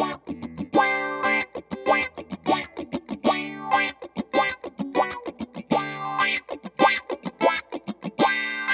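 Electric guitar, a PRS SE Silver Sky, played through an EarthQuaker Devices Spatial Delivery envelope filter: rhythmic funk chord stabs with muted scratches between them, the filter sweeping on each attack like an auto-wah. The pedal's filter knob is being rolled from the low-pass setting through band-pass toward high-pass.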